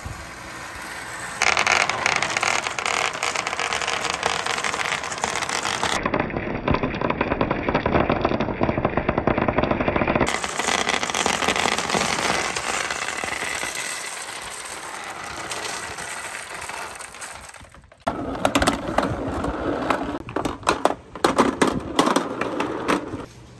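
A crowd of glass marbles rolling through a long clear plastic pipe and tumbling out onto wooden slopes, a dense continuous clatter of clicks. After a break about 18 seconds in, the clatter turns into sparser separate clicks and knocks of balls against the track.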